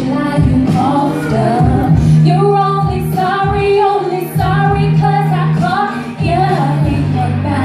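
A vocalist singing live into a microphone over a DJ's backing track, with long held notes that bend in pitch over a deep sustained bass line.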